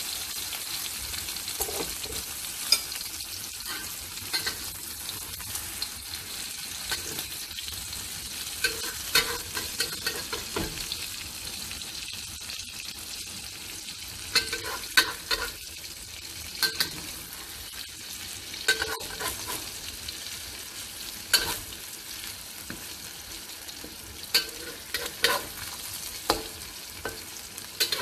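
Beaten eggs and shrimp sizzling in hot oil in a wok, with a steady hiss. A metal spatula clicks and scrapes against the wok at irregular intervals as the egg is stirred and turned.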